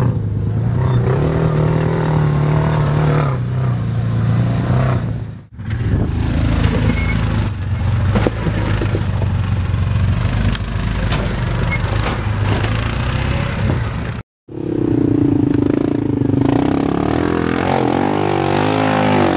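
Side-by-side UTV engines running and revving under load as the vehicles crawl over rock, in separate clips that change abruptly about five and a half seconds in and again after a brief dropout near fourteen seconds. Near the end the engine revs up and down repeatedly.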